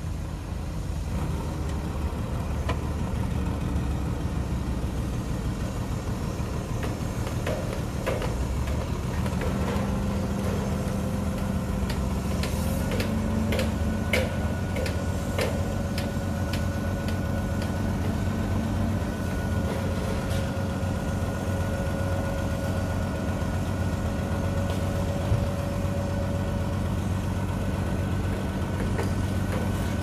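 Diesel tipper dump truck's engine running steadily, its speed raised about a third of the way in to drive the hydraulic hoist as the loaded tipper body lifts. A few sharp clicks come partway through.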